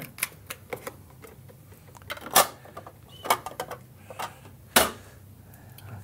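Scattered light clicks and knocks of plastic parts being handled at an espresso machine, with two sharper knocks about two and a half and five seconds in.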